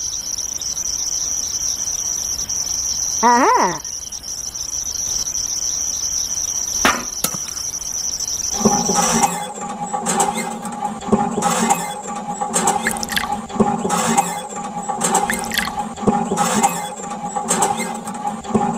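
Steady insect chirping like crickets, with a short falling call a few seconds in and a click a little later. About halfway through, background music with a steady beat comes in and carries on.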